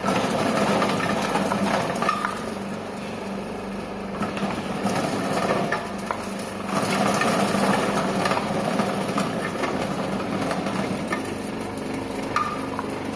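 Electric garlic-peeling machine running: a steady motor hum under a dense, continuous rattle and knocking as garlic cloves are tumbled and their skins rubbed off.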